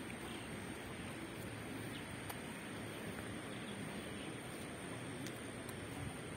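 Faint outdoor ambience: a steady, even background hiss with a thin, high, steady whine over it and a few faint ticks.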